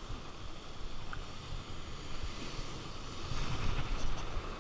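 Sea surf washing over rocks, with wind buffeting the microphone in uneven low gusts.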